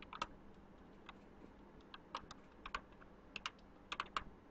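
Computer keyboard typing: faint, irregular keystroke clicks in short runs.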